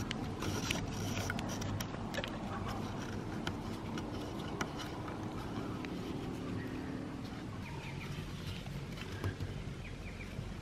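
Hand work lashing a rail to the wooden treehouse frame: scattered light knocks, clicks and rubbing as the rope is pulled and wrapped. A few faint bird chirps come in near the end.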